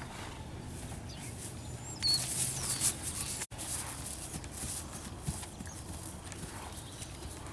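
Buckskin mare and her week-old filly moving about on grass, soft hoof falls. There is a loud hissing rush of noise for about a second, two seconds in, and a few short high chirps.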